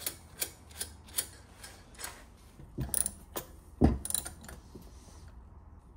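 Hand ratchet wrench clicking as 10 mm nuts are tightened on a turbocharger's wastegate actuator bracket: separate sharp clicks about two to three a second, with a few louder metal knocks in the middle.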